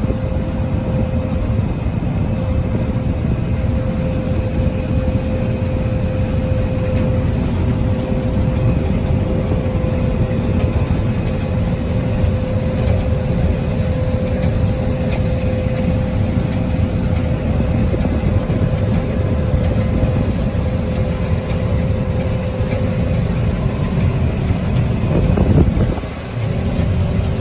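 Combine harvester running under steady power, a constant diesel drone with a steady whine over it. It dips briefly near the end.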